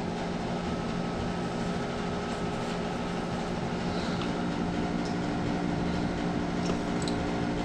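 Steady background hum of a fan or motor running, with a few faint light clicks.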